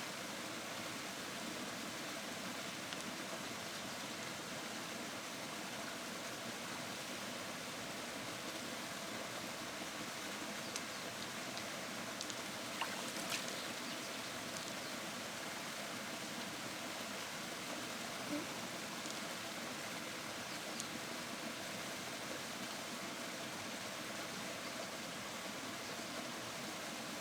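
Steady rush of flowing river water, with a few faint clicks in the middle.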